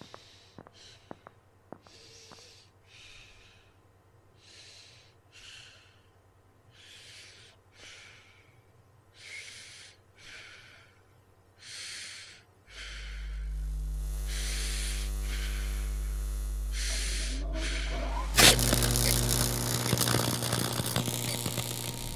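A man breathing in short breaths about once a second, after a few faint clicks. About halfway through a steady low electrical hum switches on, and near the end a sudden loud buzzing crackle cuts in: the electric chair's current running.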